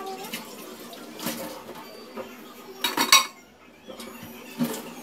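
Dishes clinking and knocking at a kitchen sink as a bowl and kitchenware are handled: a few separate clatters, with the loudest cluster about three seconds in.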